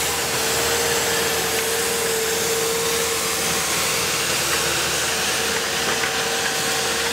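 An engine running steadily: an even hum with one constant mid-pitched tone held throughout.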